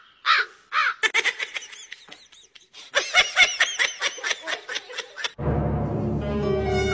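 An animal giving a quick run of short, harsh calls, several a second, that grow faster and louder about three seconds in. Music takes over about five and a half seconds in.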